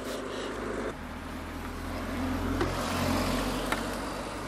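Road traffic heard from a slow-moving scooter: a low, steady vehicle rumble that swells about two to three seconds in, with a few light ticks.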